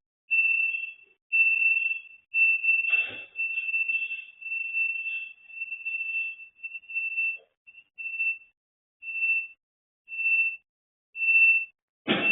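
Electronic alarm beeping on one steady high tone. The beeps are long and almost run together at first, then turn short, about one a second. A brief clatter comes about three seconds in and a louder one near the end.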